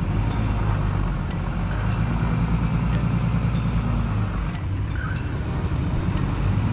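Ram 2500 pickup's engine running at low speed as the truck creeps over rough bush ground, its note rising a little about two seconds in and easing off again near the end. Faint sharp clicks come through now and then.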